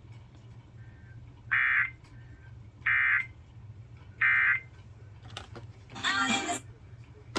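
Three short bursts of SAME digital data tones, each about a third of a second and about 1.3 s apart: the End of Message (EOM) code that closes a NOAA Weather Radio emergency alert. About six seconds in comes a brief, louder noisy sound.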